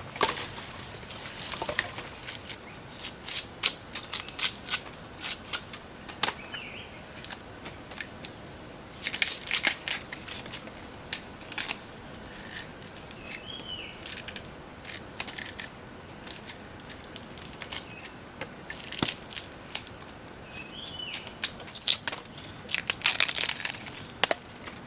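Irregular sharp cracks and crunches of plant material being broken apart by hand, coming in flurries, with a few short high chirps between them.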